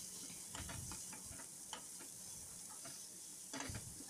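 Metal ladle stirring onions and green chillies frying in oil in a metal kadai: faint, scattered clicks and scrapes against the pan over a soft, steady sizzle, with a louder scrape near the end.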